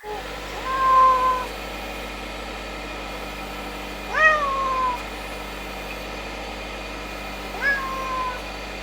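A cat meows three times, a few seconds apart, each call rising in pitch and then drawn out and falling away, over a steady low background hum.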